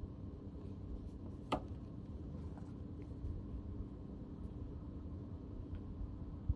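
Steady low background hum with a single sharp click about a second and a half in, and a fainter tick near the end.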